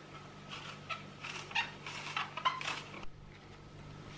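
Apple being peeled by hand: a quick series of short rasping scrapes of the blade through the skin, about three a second, stopping abruptly about three seconds in.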